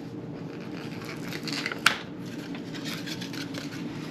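Rustling and scraping of packaging being handled, with one sharp click about two seconds in.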